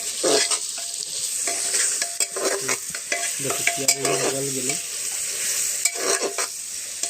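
Sliced onions frying in mustard oil in a pot, sizzling as they are stirred, with irregular scrapes and knocks of the stirring spoon against the pot.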